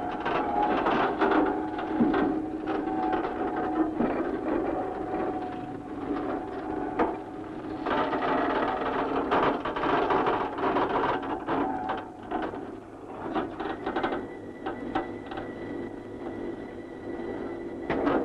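Tower crane machinery clattering and whirring in a dense, rapid rattle. A thin steady whine joins for the last four seconds or so.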